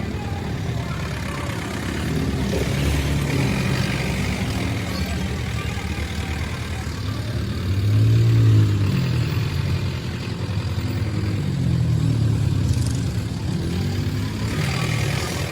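Road vehicle engine running with road noise, revving up and easing off about eight seconds in and again around twelve seconds.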